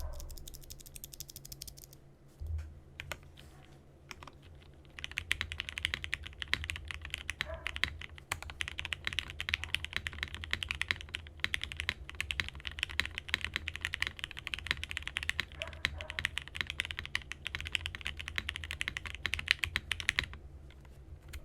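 Typing on a Frog TKL mechanical keyboard with lubed and broken-in Gateron KS3 Black linear switches, FR4 half plate and tape mod. Scattered keystrokes for the first few seconds, then fast continuous typing that stops about a second before the end.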